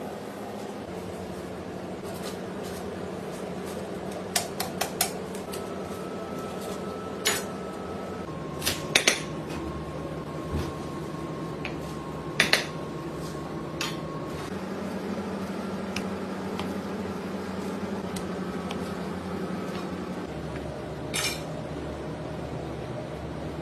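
Metal utensils knocking and clanking against pots and pans during cooking. The knocks come in scattered clusters, some leaving a brief metallic ring, over a steady background hum.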